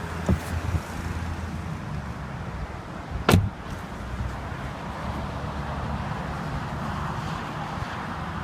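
Retractable hardtop of a Mercedes-Benz SL550 in operation: a steady mechanical hum with one sharp clunk about three seconds in.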